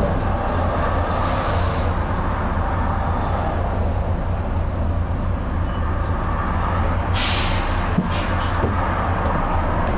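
Volvo B9TL double-decker bus's diesel engine running steadily, heard from inside the bus, with a short hiss of compressed air from the bus's air system about a second in and another about seven seconds in.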